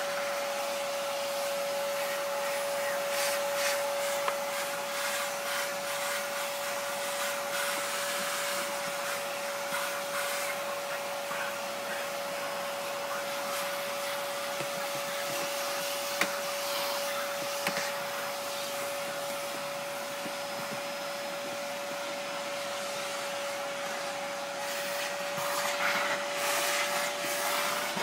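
A steady machine noise, a motor running with a constant whine over a rushing sound, with a few light knocks.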